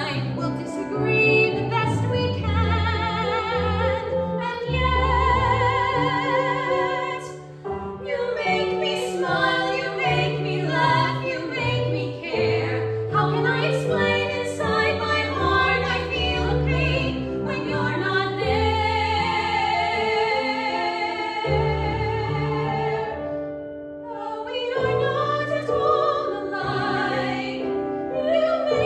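Women's voices singing a musical-theatre duet, holding long notes with vibrato over sustained instrumental accompaniment.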